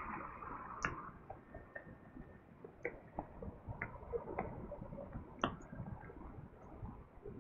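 Faint street ambience. The noise of passing traffic dies away in the first second, leaving a quiet background with scattered soft clicks and ticks at irregular intervals.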